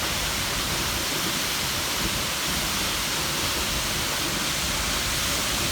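Waterfall: a steady, even rush of falling water and spray.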